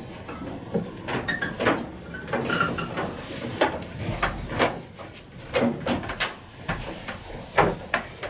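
Heavy power cable being pushed and pulled through a conduit, with a run of irregular scraping slides and knocks as it goes.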